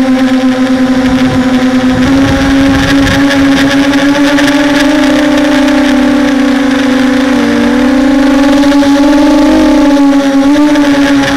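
Hexacopter drone's electric motors and propellers droning in flight, a steady hum whose pitch wavers as the throttle is corrected against gusts. Wind buffets the microphone with a low rumble about one to three seconds in.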